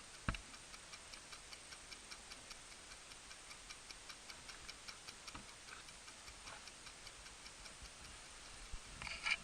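Faint, even ticking, about four ticks a second, with a low thump just after the start and a louder clatter near the end.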